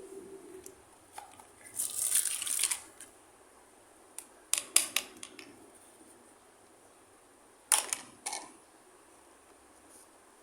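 Small plastic toy pieces being handled: a rustle lasting about a second, then a quick cluster of sharp plastic clicks, and two more clicks a few seconds later.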